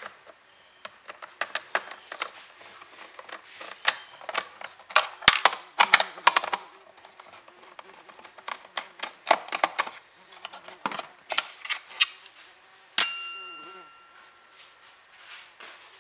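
A hand screwdriver working screws out of a plastic lawn mower battery housing: a long run of small irregular clicks, scrapes and knocks. About 13 seconds in, a small metal part drops with a sharp clink that rings briefly.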